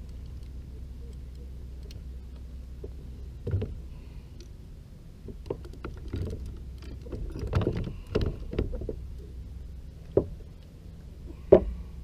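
Scattered knocks and thumps of fishing gear being handled on a plastic kayak, as a fishing rod is set into its rod holder and the landing net is lifted, with a sharp knock near the end the loudest. A steady low rumble lies underneath.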